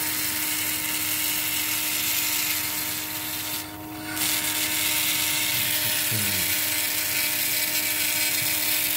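Surgical drill with a long zygomatic implant drill bit running at a steady pitch while it cuts into a plastic skull model, its motor whine under a gritty grinding hiss. The cutting noise eases briefly about four seconds in, then picks up again.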